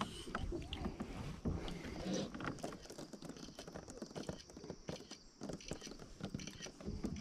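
Scattered light taps and knocks of handling on a plastic sit-on-top kayak, over faint background noise.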